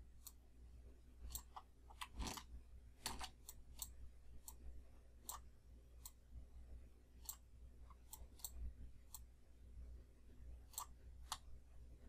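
Faint computer mouse clicks at irregular intervals, a couple of dozen short sharp clicks, over a low steady hum.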